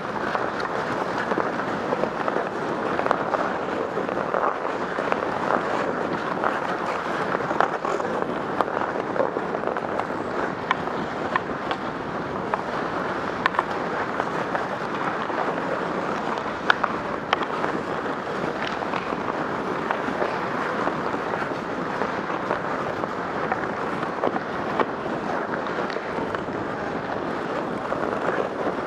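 Ice skates scraping and gliding on rink ice, with wind on the microphone as the skater moves, and scattered sharp clicks of a hockey stick handling the puck.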